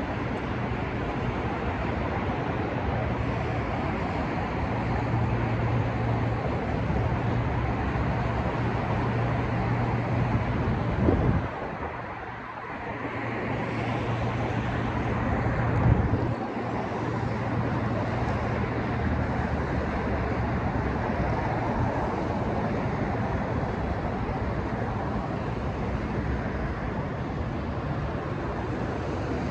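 City street traffic noise: a steady wash of passing vehicles over a constant low engine hum, dipping briefly about twelve seconds in.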